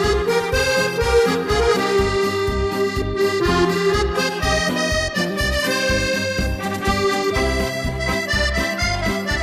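Background accordion music with held melody notes over a steady bass beat.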